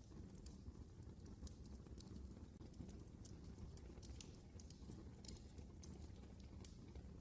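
Wood fire burning in a fireplace: a faint, steady low rumble of flames with irregular sharp crackles and pops.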